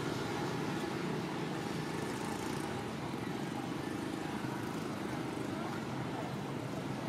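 Steady low outdoor background rumble, with faint voices in it.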